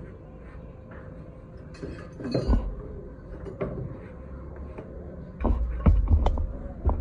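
Knocks and clatter of objects being handled over a steady low workshop hum: one burst of knocking about two seconds in, then a cluster of thumps and knocks near the end.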